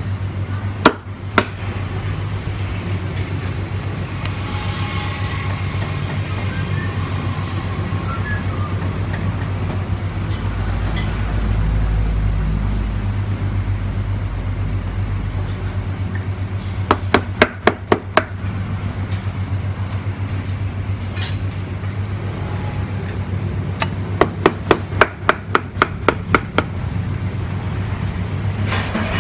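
Meat cleaver chopping roast chicken on a thick wooden chopping block: two sharp chops about a second in, a quick run of about six chops midway, and a faster run of about ten near the end, over a steady low hum.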